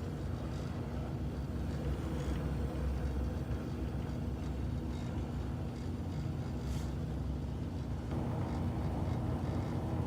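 Burners of an old gas furnace lit and burning after the pilot: a steady low rumble with a faint hum, growing slightly fuller about eight seconds in.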